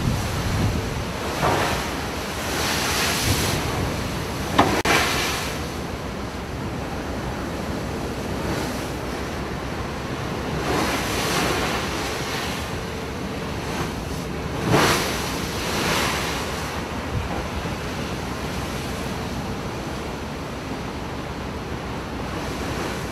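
Storm wind rushing over the microphone and rough sea breaking around a pitching boat, with several louder rushes of breaking water and gusts along the way.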